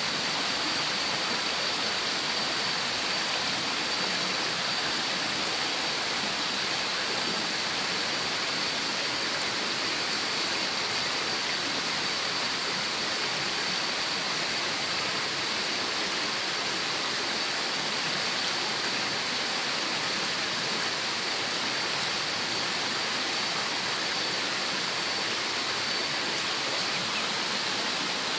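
A steady, even rushing noise with a faint, thin, high whine on top. No separate scraping strokes stand out.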